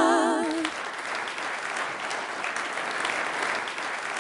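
An a cappella group of four women's voices holding the last chord of a song, cut off about half a second in, followed by an audience applauding.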